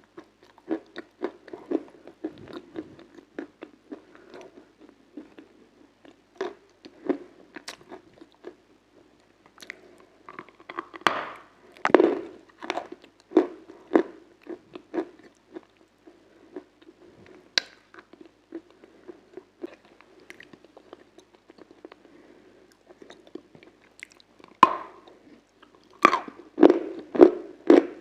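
Close-miked biting and chewing of something hard and crunchy: irregular crackling crunches with quieter chewing between. The bites come louder around the middle and again near the end.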